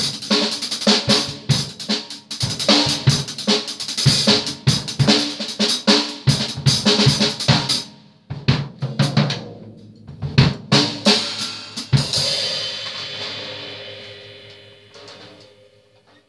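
Acoustic drum kit played in loose fills across snare, toms, bass drum and cymbals. There is a short lull about eight seconds in, then a few more hits. A final strike about twelve seconds in leaves a metallic ring that dies away over about four seconds.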